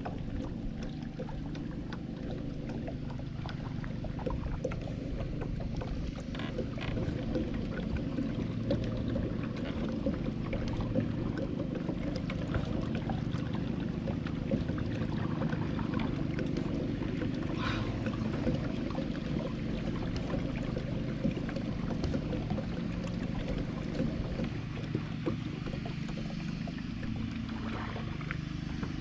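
Kayak paddling on calm canal water: the paddle dipping, water trickling and gurgling off the blades and hull, over a steady low rumble.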